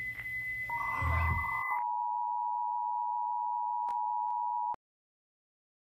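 Electronic test tones: a steady high beep over a low hum and hiss gives way, about two seconds in, to a steady lower tone of the kind played under TV colour bars. Two faint clicks come near the end, and the tone cuts off suddenly about five seconds in.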